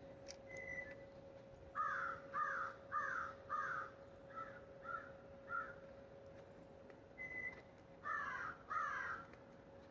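A bird giving a series of harsh, caw-like calls: four loud ones in quick succession, three fainter ones, then two more near the end. Two short whistled notes come in between, over a faint steady hum.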